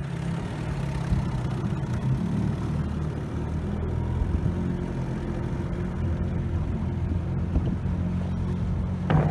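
Outboard motor on a small jon boat running steadily while the boat is underway.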